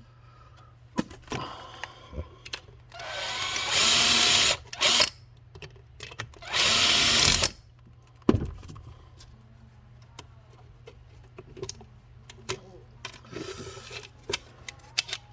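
Power drill run in two bursts of a second or two each, about three and six and a half seconds in, its motor whine rising as it spins up, drilling a hole through the plastic of a leaf blower nozzle. Short clicks and knocks of handling fall in between and after.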